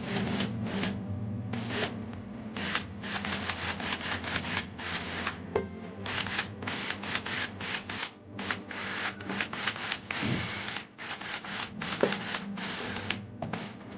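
Quick, repeated rubbing or sanding strokes, about three a second, over a low steady hum.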